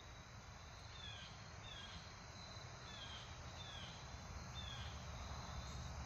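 Faint outdoor ambience between shots: a thin, steady, high insect hum with a few short falling chirps every half second to a second over a low background rumble.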